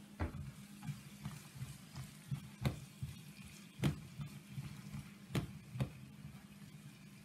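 Chopped green onions and onion frying in oil in a small non-stick pan, sizzling faintly as a red silicone spatula stirs them. The spatula knocks and scrapes against the pan about six times.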